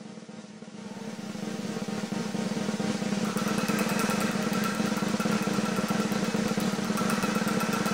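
Snare drum roll as suspense music, growing louder over the first three seconds and then held steady. Rapid high ticks sound on top of it from about three seconds in.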